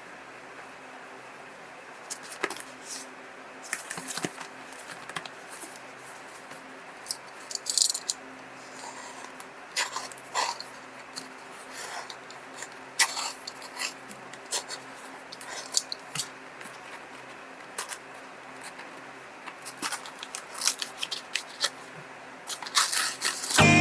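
Packaging being handled and opened by hand: scattered, irregular clicks, scrapes and rustles over a faint steady hum.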